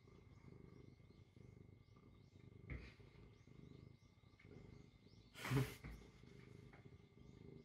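A domestic cat purring while held in someone's arms, a faint steady pulsing rumble. A short knock about five and a half seconds in is the loudest sound, with a smaller one near the three-second mark.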